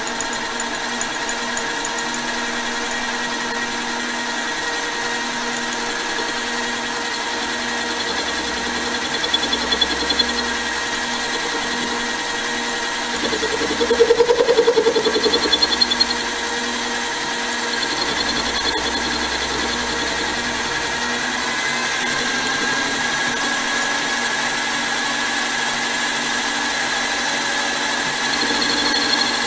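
Mini lathe running with a steady motor whine while a facing cut is taken across aluminum stock. The cutting noise swells louder for a couple of seconds about halfway through.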